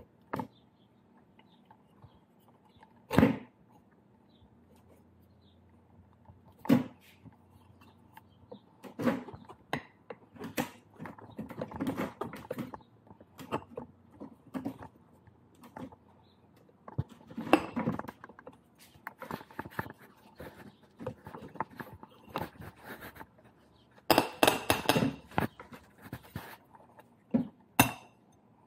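Handling noise of a scooter's split metal rim being worked loose and lifted off the tyre of the hub-motor wheel: two sharp metal knocks early on, then a long run of irregular clanks, scrapes and rubbing of rim on tyre, busiest near the end.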